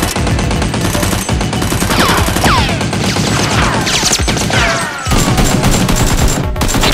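Rapid automatic gunfire sound effects, dense strings of shots dubbed over a toy-blaster firefight, with several falling whistling sweeps cutting through.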